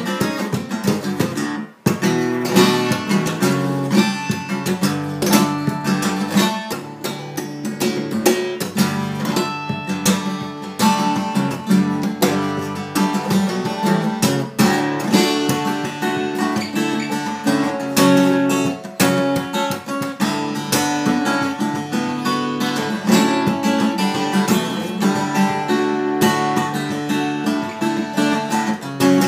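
Steel-string acoustic guitar played solo fingerstyle: a busy picked melody over bass notes, with sharp percussive strikes mixed in. A brief break comes under two seconds in.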